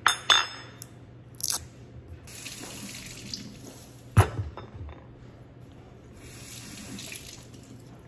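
Kitchen faucet running in two spells as acorn squash is rinsed under it, with a clatter at the start and several knocks as the squash is handled. The loudest knock comes about four seconds in.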